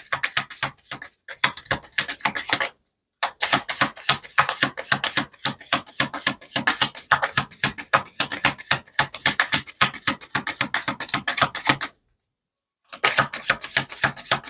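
Tarot cards being shuffled by hand: a rapid, continuous run of crisp card clicks and flicks, stopping briefly twice, about three seconds in and again near the end.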